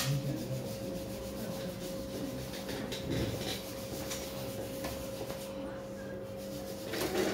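Small blade scraping hard callus on the sole of a foot in light, scratchy strokes, over a steady background hum.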